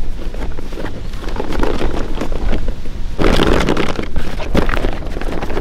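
Wind rumbling on the microphone, with the rustle and flap of a canvas backpack being handled and opened; a louder surge of rustling comes about three seconds in.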